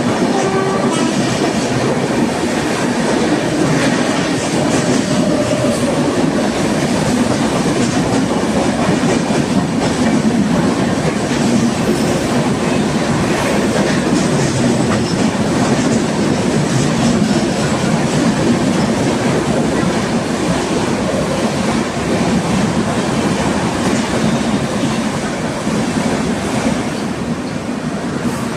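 Express passenger train passing at speed: a steady, loud rush of coaches with clickety-clack of wheels over the rail joints, easing off slightly near the end.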